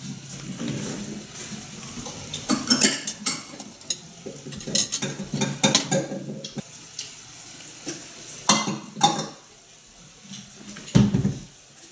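Chopsticks clicking and scraping against a stainless steel tray and its wire rack: an irregular run of sharp clinks and clatter, in bunches, with a quieter stretch near the end.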